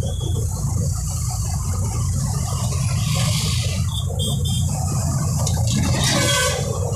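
Steady low engine and road rumble heard from inside a moving vehicle's cab, with a vehicle horn sounding briefly about six seconds in.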